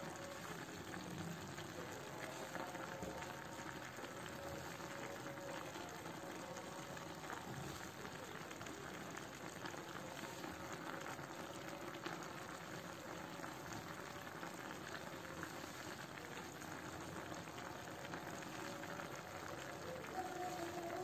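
Sauce simmering in a clay tajine, a steady low sizzle and bubbling.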